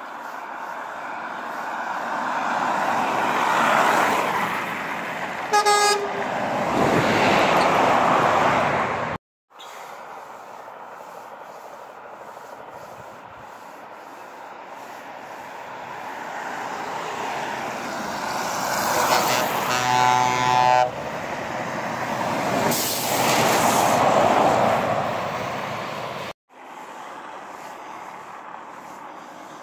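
Trucks driving past on a highway, their noise swelling as they come close, with horn signals: a short, high horn blast about six seconds in and a longer, deeper air-horn blast of about two seconds around twenty seconds in. The sound cuts out briefly twice.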